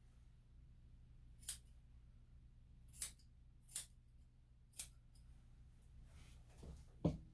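Grooming scissors snipping through dog hair: four crisp, sharp snips about a second apart, then a soft low thump near the end.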